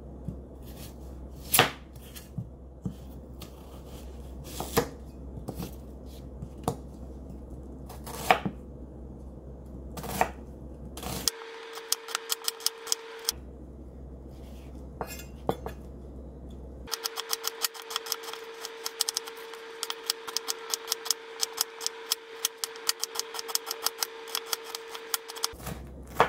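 Chef's knife cutting an onion on a wooden cutting board. For the first ten seconds or so the cuts come as separate sharp knocks about a second apart. After that come fast runs of chopping strokes as the onion is minced.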